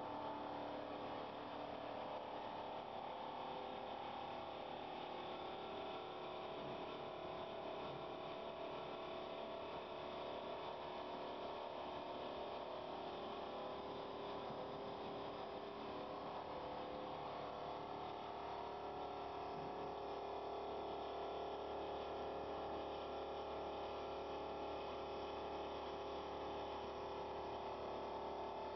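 Automatic big-pot polishing machine running: a steady, even hum and whine from its electric motors and spinning polishing wheel.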